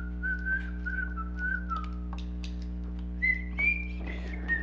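A person whistling a wandering tune in short notes, with a pause of about a second in the middle. A steady low hum and a few faint small clicks lie underneath.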